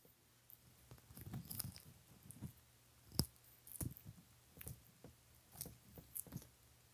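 Baby Sulcata tortoises biting and tearing kale leaves: faint, irregular crunches and crackles, mixed with the rustle of kale leaves being handled. One sharper click comes a little past three seconds in.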